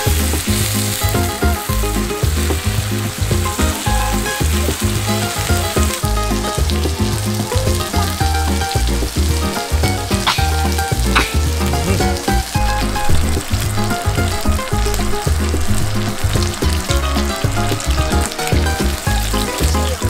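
Pork belly and green onions sizzling on a hot griddle pan, a steady frying hiss. Background music with a steady bass beat plays along.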